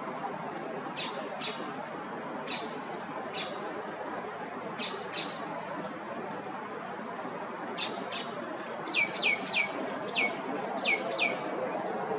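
Steady wash of water and small waves on a tidal beach, with short, scattered bird chirps. About nine seconds in comes a run of six loud, quick calls, each falling sharply in pitch.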